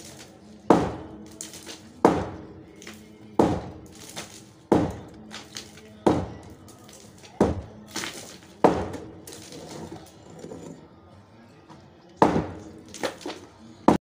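Music with a slow, heavy beat: a sharp, booming hit about every second and a half over steady held tones, pausing for a few seconds before three quicker hits near the end.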